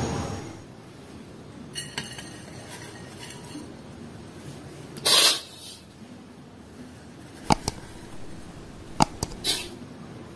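Metal spatula clinking and tapping on a ceramic plate as dry serundeng is spooned onto it: a few sharp clinks, with two short rustling swishes, one about five seconds in and one near the end.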